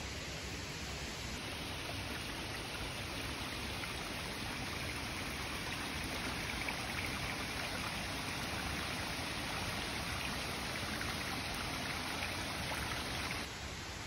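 Shallow stream of clear spring water running and splashing over rocks, a steady rushing trickle that drops suddenly near the end.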